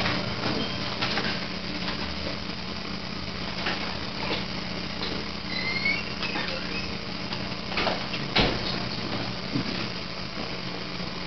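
Eurorack modular synthesizer playing sparse experimental noise: a steady low drone under scattered clicks and crackles, with a brief rising chirp about halfway through.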